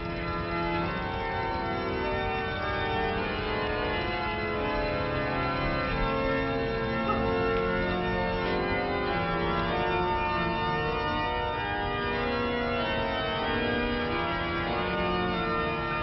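Church organ playing slow, sustained chords, the held notes shifting every second or so.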